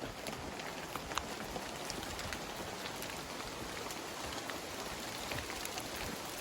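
Steady rain falling: an even hiss with scattered sharp drops landing.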